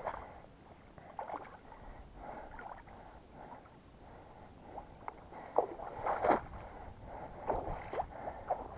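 Footsteps wading through a waterlogged bog: irregular sloshing and swishing steps through shallow water and wet grass, with louder splashing steps around six seconds in.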